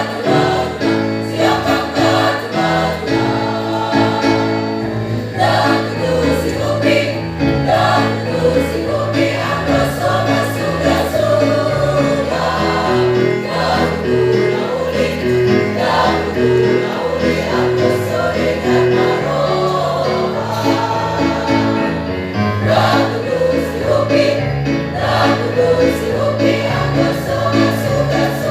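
A choir singing in parts over an accompaniment whose low notes change in even steps.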